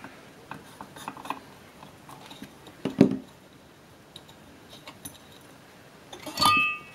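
Small clicks and scrapes of a screwdriver working the screws of a vintage metal instrument case, with the case being handled. There is a knock about three seconds in and a ringing metal clink near the end.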